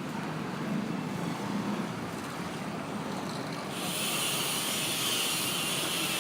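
Road traffic ambience: a steady low rumble of passing vehicles. A little over halfway through, a bright steady hiss starts abruptly and keeps going.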